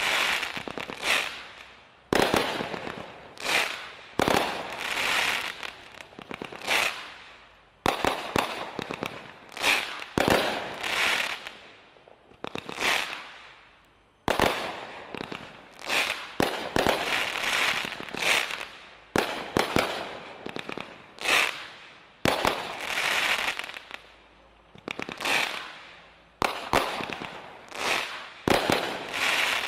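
A 48-shot 500-gram consumer firework cake firing shot after shot, about one a second or so. Each shot is a sharp launch and burst followed by a swelling, fading crackle from crackling and glitter stars.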